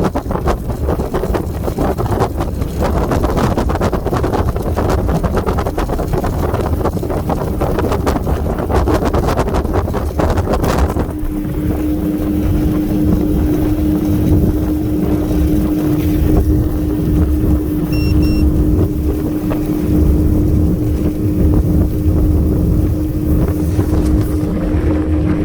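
Twin Yamaha F300 V6 four-stroke outboards running with the boat under way, with wind noise on the microphone. About eleven seconds in the wind noise drops away and a steady engine tone holds.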